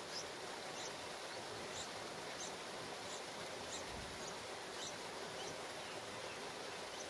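Steady outdoor background hiss with faint, short high-pitched chirps repeating about every half second.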